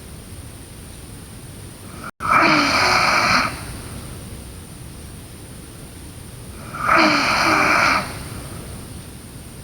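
A sleeping girl snoring: two breathy snores about a second long, roughly four and a half seconds apart, over a steady hiss. The sound cuts out for an instant just before the first snore.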